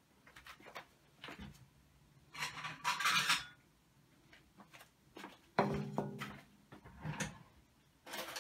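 Glass dishes being handled: scattered light knocks and clinks, a short rustling scrape about two and a half seconds in, and a heavier knock with a brief low ring a little past halfway.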